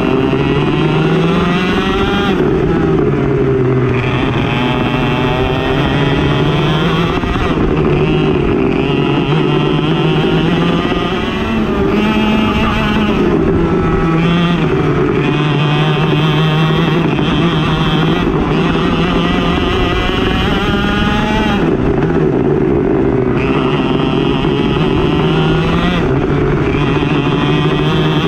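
Single-cylinder racing kart engine at full throttle, its pitch climbing steadily and then dropping sharply every few seconds as the kart brakes and accelerates around the track.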